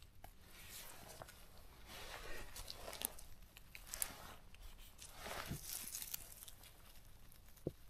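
Faint footsteps and rustling in forest-floor litter, with scattered small crackles and snaps, as mushrooms are picked from the ground.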